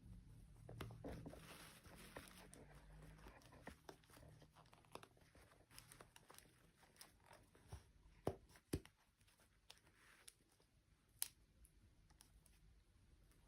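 Faint handling noises: a short stretch of crinkling, like plastic packaging, then scattered light clicks and taps, a few sharper ones near the middle and later.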